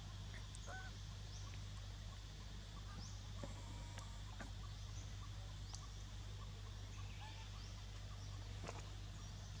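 Outdoor forest ambience: a steady low hum and hiss with scattered short, high chirps and squeaks coming and going throughout.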